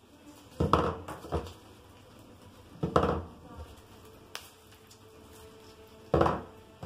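Fresh nobilis and thuja branches rustling and knocking against a table as they are handled, in three short bursts, with a single sharp click in between.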